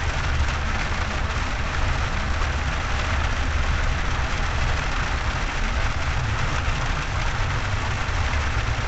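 Heavy rain beating on a car's roof and windshield, over the low steady rumble of the car driving on a wet road, heard from inside the cabin.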